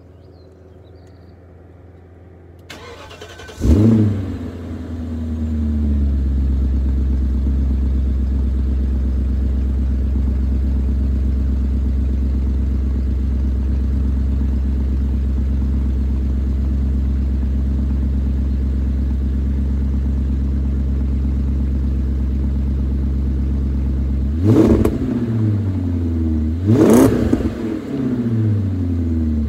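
BMW E38 740iL's 4.4-litre V8 with the mufflers deleted, starting about three seconds in with a loud flare of revs, then settling into a steady idle. Near the end it is revved twice, each blip rising and falling back to idle.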